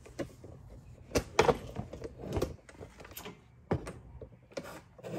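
Irregular clicks and knocks from handling things around an open engine bay, about seven in all and loudest a second or two in.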